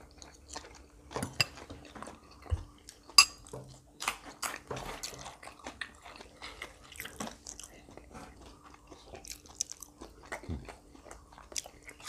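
Close-up eating sounds: chewing and biting into crisp fresh raw vegetables and grilled pork salad, with irregular crunches and a sharp click about three seconds in.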